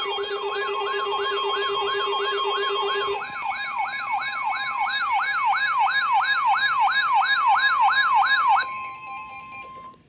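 Several NOAA weather radios alarming together for a severe thunderstorm warning. A warbling siren tone sweeps up and down about three times a second over a steady high alert tone, and a lower steady tone stops about three seconds in. Near the end the warble stops, leaving the steady alert tone alone for a moment before it cuts off.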